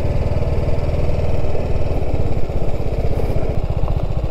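Motorcycle engine running steadily at low revs as the bike rolls slowly over dirt, its firing pulses giving an even low throb.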